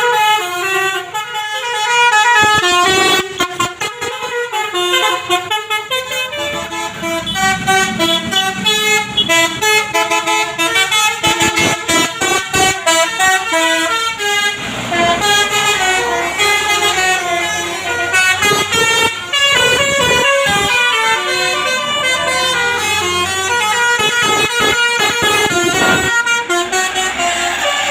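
Telolet basuri multi-tone bus horn playing a fast melody, its notes stepping up and down in pitch, with sharp clicks between many of the notes.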